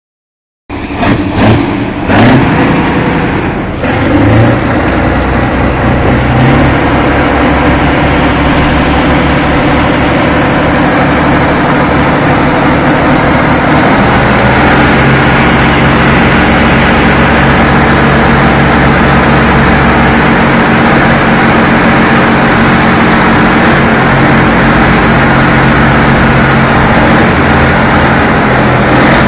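Diesel engine of a Kirovets articulated tractor working hard under load as it pulls on a tow cable hitched to a container semi-trailer. The engine note is loud and steady, with several loud knocks in the first few seconds and a shift in pitch about halfway through.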